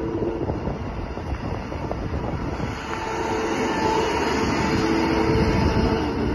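Bobcat 5610 Toolcat's Kubota diesel engine running steadily as the utility vehicle drives and turns, with a faint whine coming and going.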